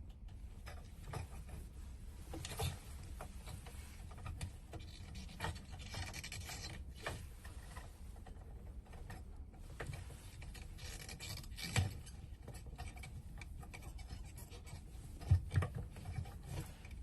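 Hand work at the fuel pump opening: a rag and small parts rubbing and scraping, with scattered light clicks and a sharper knock about two thirds of the way through.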